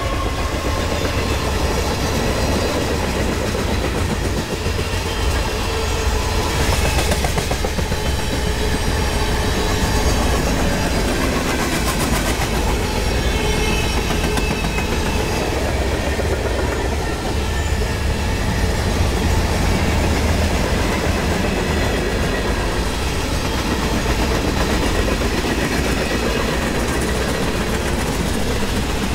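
Freight cars of a Union Pacific train rolling past at close range, their steel wheels running steadily on the rails.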